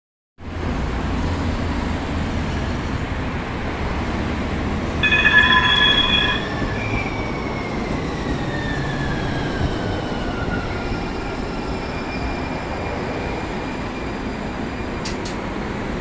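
Two-car Siemens S200 light-rail train arriving and braking to a stop, with steady rumble from the wheels and running gear. A brief shrill chord of high tones sounds about five seconds in, the loudest moment, then the whine of its IGBT-VVVF inverter-driven traction motors falls steadily in pitch as the train slows. Two sharp clicks come near the end.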